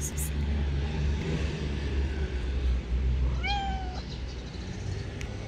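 A street cat gives one meow about three and a half seconds in, rising then falling in pitch, over a steady low rumble.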